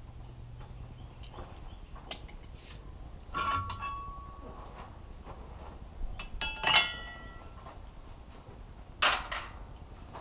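Steel blacksmithing tools clinking against each other several times, some clinks leaving a short ring. The loudest come about seven and nine seconds in.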